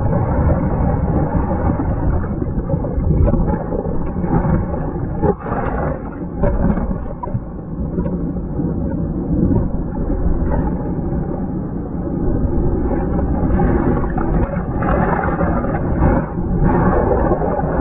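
Water churning and bubbling around a camera held underwater, heard as a steady, loud low rumble with brief dips in level.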